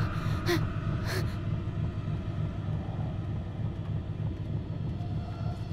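Low, steady rumble of a car's engine running, with two short sharp noises in the first second or so.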